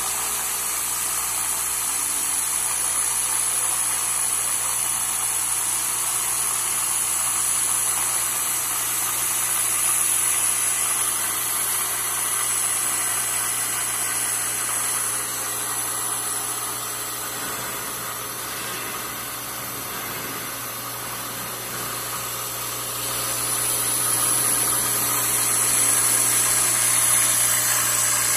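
CNC vertical milling machine cutting an aluminum mold plate: a steady high whine and cutting noise over a low steady hum. It eases off somewhat in the middle and grows louder again about two thirds of the way through.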